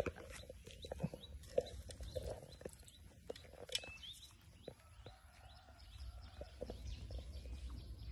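Faint outdoor ambience with a few short bird chirps and scattered small clicks and rustles.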